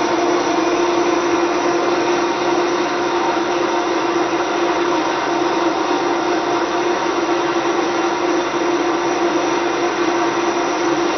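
Vitamix blender running steadily, with a constant motor whine, as it blends water, cashews and shredded carrots. It is on a long run that heats the mix through friction until the jar grows warm.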